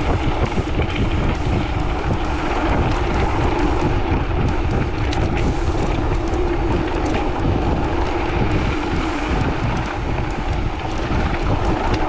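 Mountain bike descending a downhill trail at speed: wind rushing over the microphone with steady tyre rumble and frequent small knocks and rattles from the bike over rough ground.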